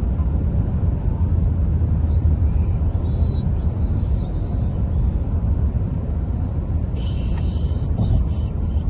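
Steady low rumble of a car driving, road and engine noise heard from inside the cabin, with a few short high-pitched sounds in the middle and near the end.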